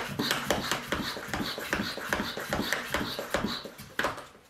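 Hand-pump pressure mister being pumped to build pressure, in quick even strokes about two a second, each with a short high squeak; a knock about four seconds in as the pumping stops.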